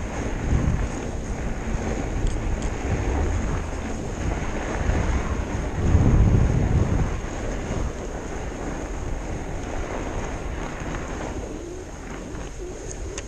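Wind buffeting the microphone of a handlebar camera on a fat bike riding over a snowy trail, mixed with the rolling noise of the bike. It is a steady rush with low rumbling swells, the loudest about six seconds in.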